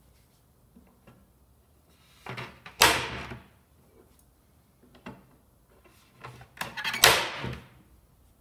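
Spring steel wire clips snapping into the machined slots of a plywood shipping crate, twice, about four seconds apart. Each is a few small clicks and scrapes as the clip is worked in, then a loud snap that dies away over about half a second. A fainter click comes between the two.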